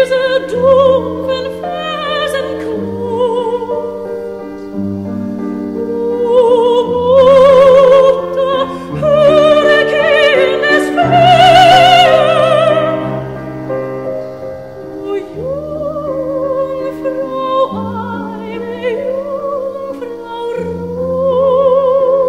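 Background music: operatic singing with a wide vibrato over slow, sustained low chords that change every couple of seconds.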